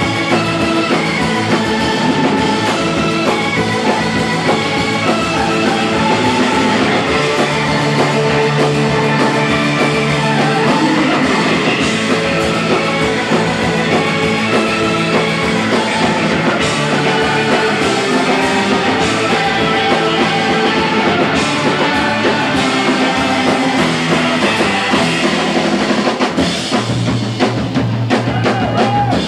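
Live instrumental surf rock band playing loudly, with electric guitars over a drum kit, heard from the crowd in a club.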